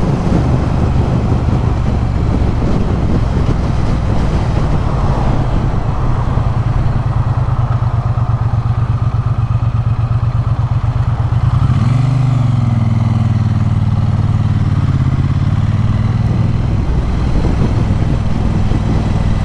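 Triumph Bonneville T100's 900 cc parallel-twin engine running steadily while the motorcycle is ridden along a road. About twelve seconds in, the engine note rises briefly, then holds steady again.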